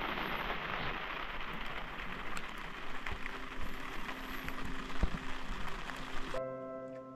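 Steady rain falling, with scattered louder drops ticking on a surface. About six seconds in it cuts off suddenly and soft music begins.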